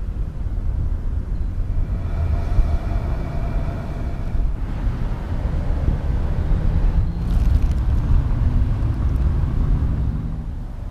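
Heavy diesel logging-truck engines running with a continuous low rumble. In the second half one engine's pitch climbs as it revs up.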